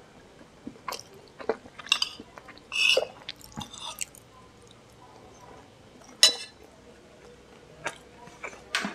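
A person chewing food, with a metal spoon clicking and scraping against a bowl now and then; the loudest is a sharp click a little after six seconds in.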